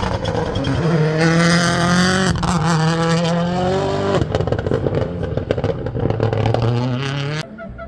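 Rally car engine under hard acceleration, its note climbing and dropping with gear changes and a run of sharp crackles about halfway through, then climbing again before cutting off suddenly near the end.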